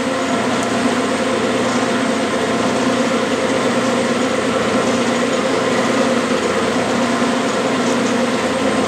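Clausing metal lathe running at a steady speed with its lead screw disengaged, the spindle turning brass stock while a carbide-style tool takes a light, hand-fed facing cut on the end; a steady machine hum with several held pitches.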